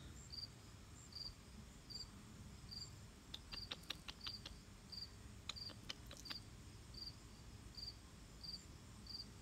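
A cricket chirping faintly at a slow, even rate, a little over one high chirp a second, over a low outdoor rumble. Around the middle comes a quick run of sharp clicks.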